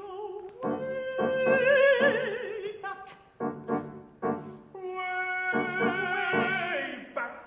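Operatic singing with wide vibrato over piano accompaniment. A run of short, detached chords comes in the middle.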